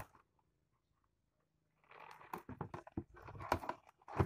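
After nearly two seconds of near silence, a dense run of rustling, scraping and light irregular taps as a mesh keep net full of fish is tipped and shaken out into a plastic basin, the fish sliding and knocking against the net and the basin.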